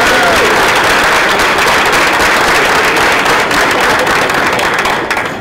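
Audience applauding, dense clapping that fades near the end.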